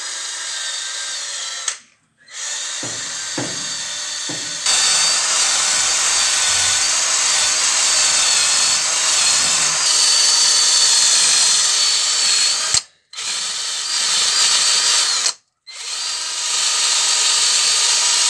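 Electric drill with a small abrasive disc scouring crud off an engine block's exhaust-manifold mounting face. It runs with a steady high whine in long bursts, stopping briefly three times, and gets louder from about five seconds in.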